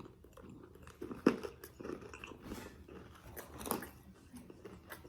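A person chewing and biting food close to the microphone, with irregular crunchy bites; the sharpest bite comes a little over a second in.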